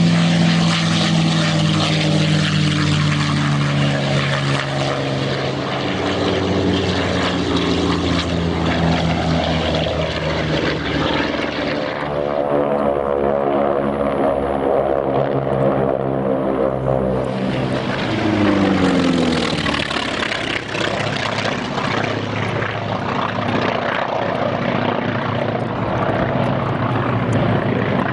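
Piston-engine propeller warbirds flying past: a P-51 Mustang's engine on a low pass, its note falling as it goes by, then a formation of propeller planes droning overhead, rising and falling in pitch a little past the middle.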